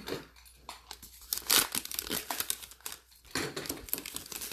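Wrapper of a 2020 Illusions football card pack being torn open and crinkled by hand: an irregular crackling, loudest about a second and a half in.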